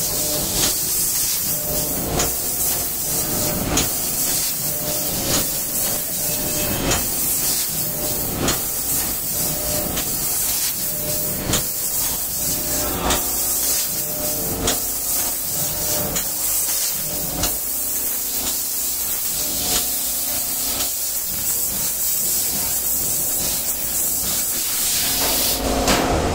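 Laser tube cutting machine at work: a steady high hiss of assist gas at the cutting head. Short clicks come about every second and a half, and a motor hum comes and goes as the tube is moved and cut.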